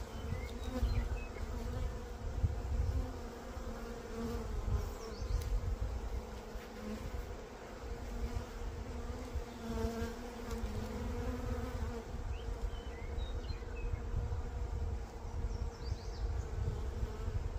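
Honey bees buzzing on an open brood frame lifted from the hive: a steady hum, with an uneven low rumble underneath.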